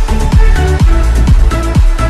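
Electronic dance music with a steady kick drum, a bit over two beats a second, under sustained synth notes.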